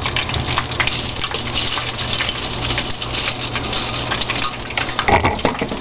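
Hot oil in a deep fryer sizzling and crackling steadily over a low hum, with a brief bump near the end.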